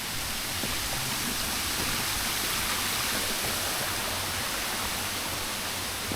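Steady rushing of running water, an even hiss without pitch or breaks.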